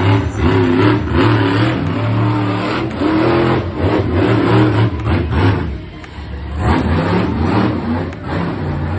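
Monster truck engine revving hard as the truck drives around a dirt arena, its pitch rising and falling again and again with the throttle. It eases off briefly about six seconds in, then picks up again.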